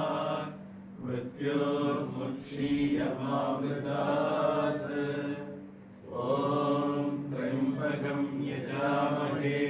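Sanskrit mantra chanting by a voice in long phrases, with brief pauses about a second in and about six seconds in, over a steady low hum.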